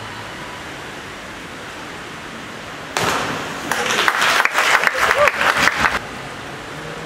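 Steady hum of a large indoor pool hall, then about three seconds in a diver hits the water from the 10 m platform with a sudden splash. Spectator applause follows and cuts off suddenly about three seconds later.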